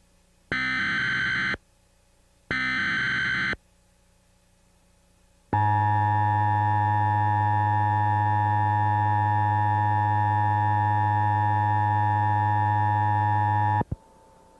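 Emergency Alert System tones: two bursts of the SAME digital header, a harsh screeching data sound about a second each and a second apart. After a short pause the EAS two-tone attention signal (853 and 960 Hz) sounds steadily for about eight seconds, then cuts off abruptly. The header carries the alert's coded type and area, and the attention tone announces the voice warning that follows.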